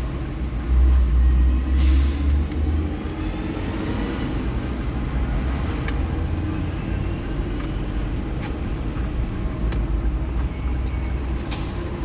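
Steady low motor-vehicle rumble, heavier for the first few seconds, with a short sharp hiss about two seconds in and a few light clicks.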